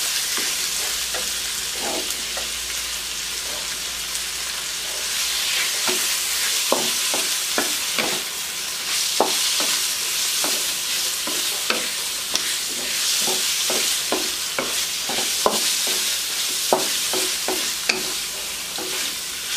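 Pork, onion, garlic and bell pepper sizzling in hot oil in a wok while being stir-fried with a wooden spatula. Steady sizzle throughout, with the spatula scraping and tapping against the pan, the strokes coming quickly from about six seconds in.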